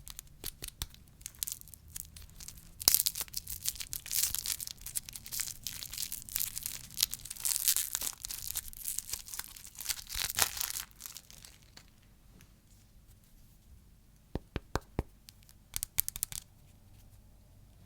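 Plastic candy wrapper crinkling and tearing, a dense crackling that thins out to a few scattered crackles after about eleven seconds.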